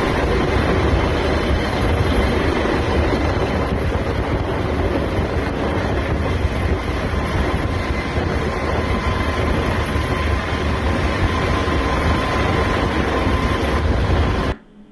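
Helicopter hovering close by: a steady rotor and engine noise with a faint steady whine on top, cutting off suddenly near the end.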